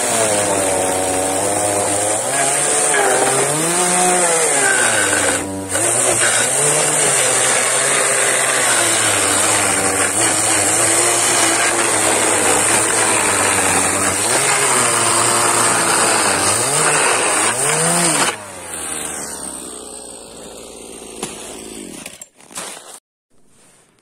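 Champion 241 two-stroke chainsaw under load, cutting through a stack of slab wood, its engine pitch sagging and rising as the chain bites. The engine cuts off about eighteen seconds in, leaving quieter handling sounds.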